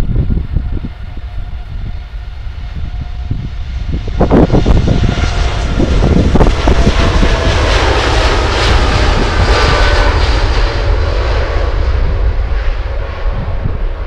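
Jet airliner's engines at takeoff power, growing loud about four seconds in and staying loud, with a whining tone that slowly drops in pitch. Wind buffets the microphone throughout.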